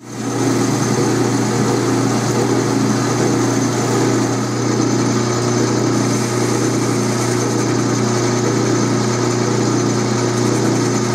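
Atlas metal lathe running steadily while a carbide insert turns a shallow taper on the spinning workpiece: a constant machine hum with cutting noise over it, fading in at the start.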